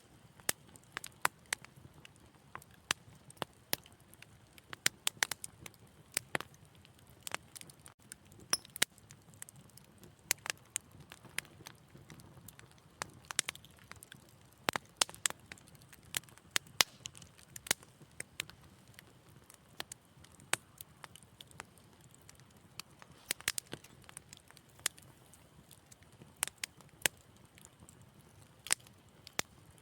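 Fire in a fireplace crackling: sharp, irregular pops and snaps, sometimes several close together, over a soft, steady low background.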